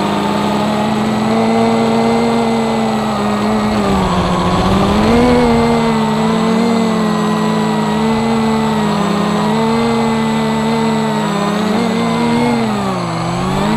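Brushless motors and propellers of a scratch-built Battle-H FPV quadcopter buzzing in flight, the pitch rising and falling as the throttle changes. The pitch sags near the end.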